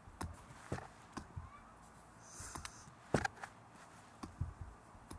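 Ten-pound hand dumbbells knocked in an uneven drumming rhythm against a flip phone and the carpeted floor. It is a string of short dull knocks, the loudest about three seconds in.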